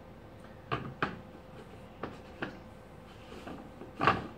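Light plastic knocks and clicks from calcium reactor parts being handled, with a louder knock near the end as the plastic lid is set onto the acrylic reaction chamber.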